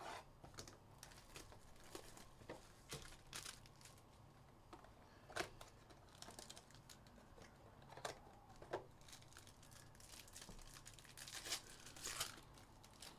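Faint crinkling and tearing of plastic wrap and packaging as a trading-card box is opened and its plastic sleeve of cards handled, as scattered small crackles and rustles with a few sharper ones about five, eight and twelve seconds in.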